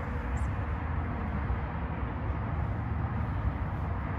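Steady outdoor street noise: a low, even rumble of traffic.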